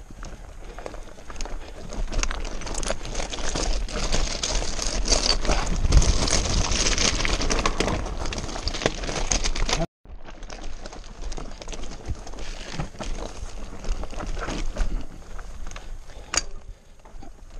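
Scott Genius 720 Plus mountain bike on a rocky descent: tyres crunching over loose stones and the bike rattling with dense clicks, loudest in the middle, with a sudden brief dropout about ten seconds in.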